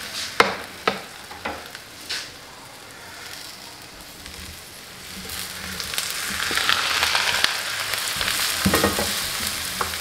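A metal spatula scraping and tapping a frying pan over a plate, with a few sharp clicks in the first two seconds. From about halfway through comes a louder wet hiss and sizzle as a spoon stirs boiled corn kernels into the hot melted butter and jaggery syrup, with a few clinks against the plate near the end.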